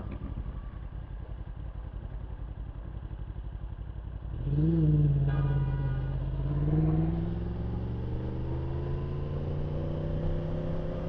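Yamaha R1 inline-four motorcycle engine idling. About four seconds in, the engine note jumps louder as the bike pulls away, then its pitch climbs steadily as it gathers speed.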